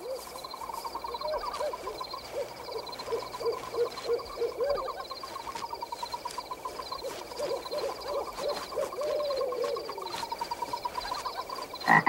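Night-forest sound effects: an owl hooting in repeated runs of short calls over a fast, steady trilling.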